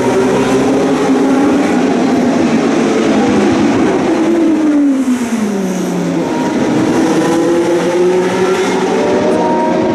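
Historic Formula 1 race car engines running at high revs. About four seconds in, one engine note falls steeply, as when a car brakes and downshifts or passes by, and then the notes climb again as the cars accelerate.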